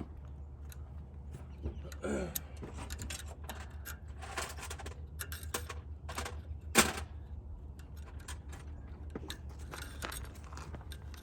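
Light metallic clinks, taps and scraping of hand tools working at a stuck axle bearing in a truck's rear hub, with one sharper knock about seven seconds in.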